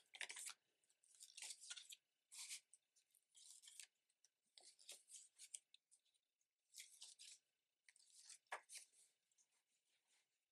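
Faint rustling and brushing of paper and cardstock as the pages of a handmade junk journal are turned and pressed flat by hand, in short scattered rustles.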